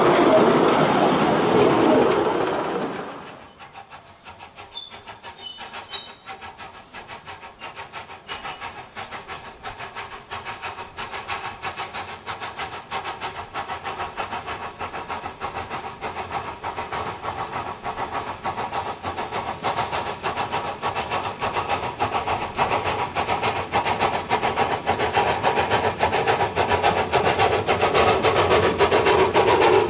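Open wooden carriages of a narrow-gauge field railway rolling past close by. After a sudden cut, the 1917 Krauss steam locomotive Taxus approaches, with a rapid, even clatter that grows steadily louder as it nears.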